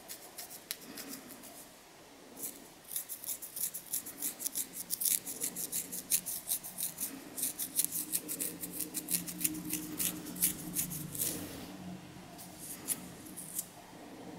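Long fingernails scratching through hair on a flaky, dandruff-covered scalp: a rapid run of crisp, dry scratches that starts about two seconds in and thins out to a few scattered scratches near the end.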